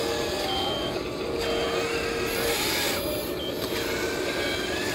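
Radio-controlled scale construction machines (tracked bulldozer and wheel loader) driving in sand: a steady whir of small electric motors and gears, with held tones and short beeps like reversing alarms from the models.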